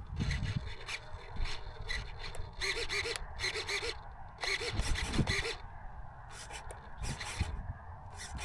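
Irregular scratchy rustling, in short bursts every fraction of a second, over a constant low wind rumble on the microphone.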